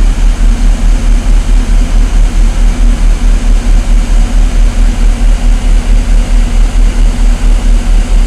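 Military vehicle's engine idling, heard inside the cab: a loud, steady low throb pulsing about five times a second.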